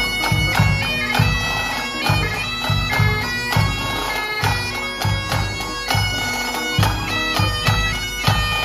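Pipe band playing a march: Highland bagpipes hold a steady drone under the chanter's melody, and the drums keep a steady beat about twice a second.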